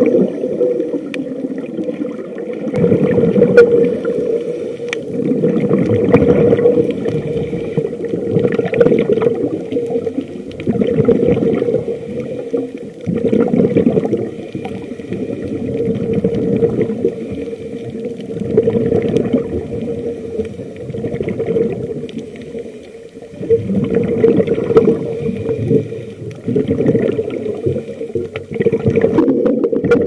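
Scuba diver's regulator breathing heard underwater: bubbly exhalations that swell and fade every few seconds, over a steady low hum.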